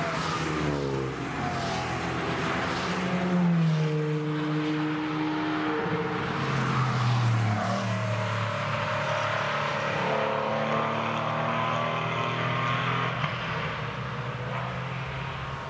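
Several cars passing one after another through a corner, their engines accelerating and lifting off so that the engine notes rise and fall in turn, with two or three cars heard at once.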